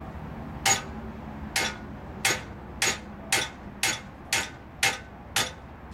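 Blacksmith's hand hammer striking an iron rod on steel nine times, each blow ringing briefly. The blows come quicker after the first couple, settling to about two a second.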